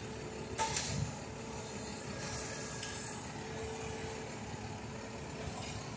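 Railroad maintenance-of-way machine's diesel engine idling steadily, with a brief sharp knock a little over half a second in.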